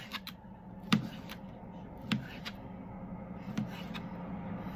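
Knife chopping through a skinless smoked sausage onto a plate: a handful of short, sharp taps, unevenly spaced, as each slice is cut.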